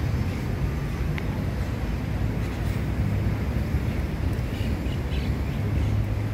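Outdoor park ambience: a steady low rumble, with a few faint bird chirps near the end.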